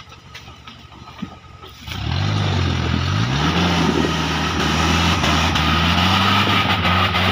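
Suzuki Jimny off-roader's engine revving hard under load as it claws up a slippery rocky slope. It comes in loudly about two seconds in, climbs in pitch, then holds at high revs.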